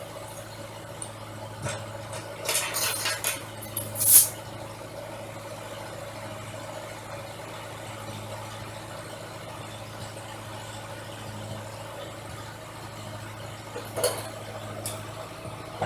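Vehicle engine idling steadily, with a few short clanks and rattles about three to four seconds in and again near the end.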